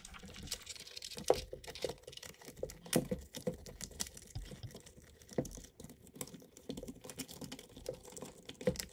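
Quick, irregular light clicks and rustles of hands handling a bundle of electric-skateboard hub-motor wires and small plastic connectors, pushing them through the truck mount.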